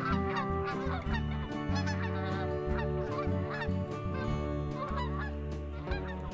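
Background music: a lead instrument plays short sliding, bending notes over sustained chords and a bass line that changes notes every second or so.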